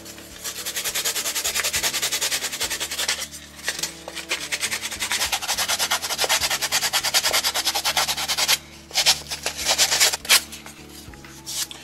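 Sandpaper rubbed by hand over a foam coal load, rounding off its carved peaks: quick back-and-forth scratchy strokes, a few a second, with brief pauses about three seconds in and near nine seconds.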